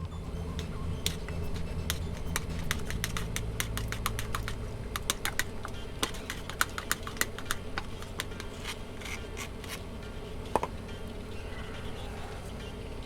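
Irregular scratching and light metallic clicks as a brake caliper slide pin is scrubbed clean by hand.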